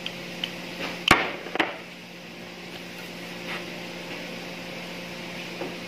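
A metal spoon knocking and clinking against a ceramic bowl while a filling is mixed, with two sharp knocks about a second in, half a second apart, and a few lighter taps around them. A steady low hum runs underneath.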